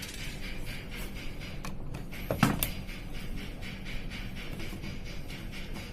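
Light handling clicks and one sharp knock about two and a half seconds in, over a steady low hum.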